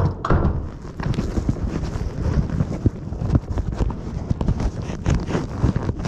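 Low rumble with many irregular knocks and rattles, as inside a moving Las Vegas monorail car, with a sharp jolt right at the start.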